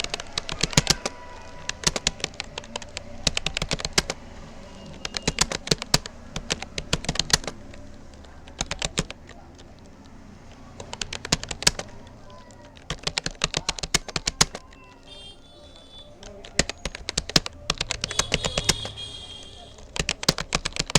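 Typing on a Rapoo computer keyboard: quick runs of key clicks in bursts, with short pauses between them.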